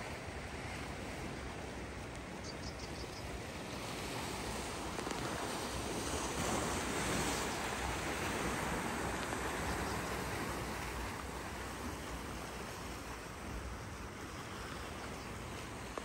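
Sea washing against a rocky shore, a steady rushing noise that swells a little in the middle, with some wind.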